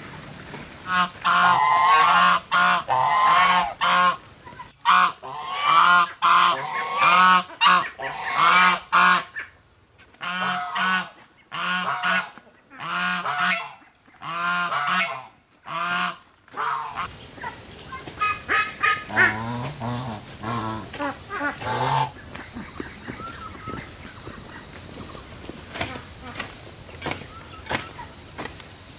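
Geese honking over and over in quick bouts for most of the first seventeen seconds, with a few more calls around twenty seconds before they stop. A steady high buzz runs underneath.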